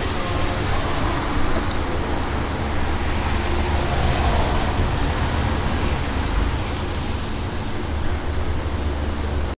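Steady street background noise: a continuous low rumble with a faint steady hum, and no single distinct event.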